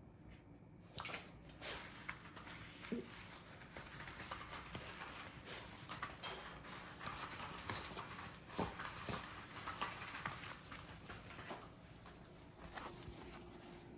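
Puppy scampering about, its paws pattering with scattered light clicks and rustling.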